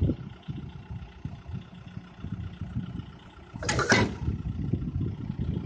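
Tractor engine running steadily while its rear-mounted disc implement works through dry grass and brush, with a rough low rumble. A brief loud burst of noise comes about three and a half seconds in.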